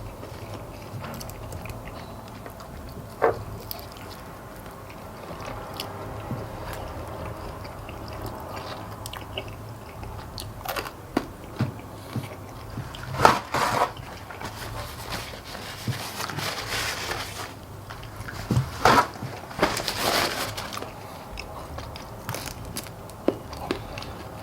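Close-up chewing of fried chicken wings with sharp cracks and crunches as the bones are bitten through, louder cracks at scattered moments, between stretches of wet chewing and sucking.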